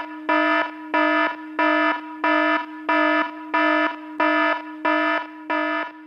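Electronic alarm sound effect: a buzzing tone that pulses louder about three times every two seconds.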